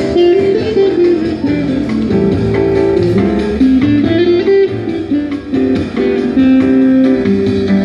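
Acoustic guitar being fingerpicked: a bluesy melody of single notes stepping up and down over lower bass notes.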